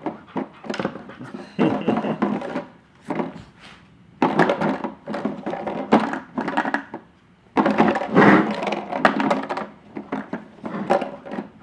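Husky working a homemade treat toy, its plastic bottles knocked and spun on their rod so they clatter against the plywood frame in irregular bursts of knocks, with short pauses between.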